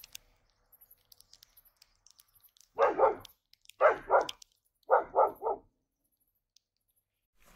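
A dog barking in three short runs about a second apart, each run two to four quick barks.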